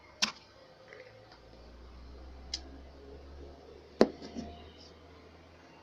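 Three sharp clicks over a low steady hum: one near the start, a softer one about two and a half seconds in, and the loudest about four seconds in, followed by a couple of lighter taps.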